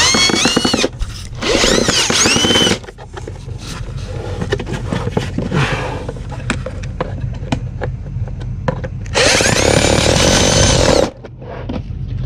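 Power drill driving the screws back into a battery box lid: two short runs early on and a longer one about nine seconds in, each rising in pitch as the motor spins up. Light clicks and handling noises come in between.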